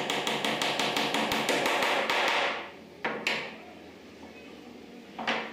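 Small cross-peen hammer tapping a wooden key into a mitred corner joint: a quick, even run of about six taps a second for the first two and a half seconds, then two single knocks, one about three seconds in and one near the end.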